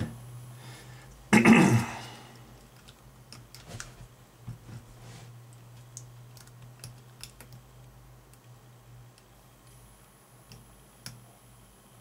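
Lock pick clicking faintly and irregularly against the pins of a Schlage seven-pin small-format interchangeable core as it is picked under tension. A brief loud noise about a second and a half in.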